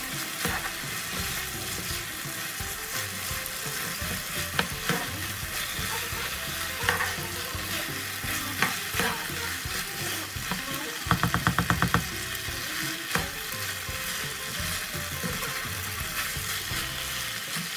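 Rice pilaf with chickpeas, chicken and butter sizzling in a non-stick frying pan while a plastic spatula stirs and scrapes through it, with scattered clicks of the spatula against the pan. About eleven seconds in there is a quick rattle of taps.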